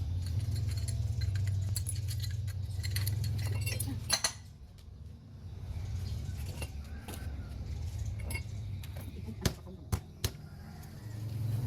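Small metal parts clinking and knocking together, a few sharp knocks standing out, over a low steady hum.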